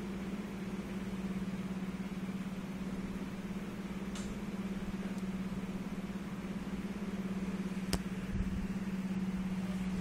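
A steady low mechanical hum, like a small motor or fan running, with a single sharp click about eight seconds in.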